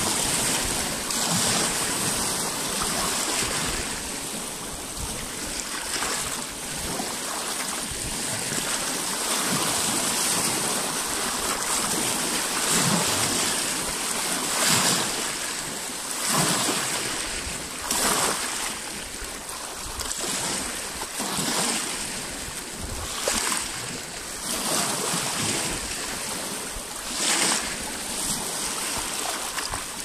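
Small lake waves lapping and splashing against a rocky shore: a steady wash of water with a louder splash every few seconds as each wave breaks over the rocks.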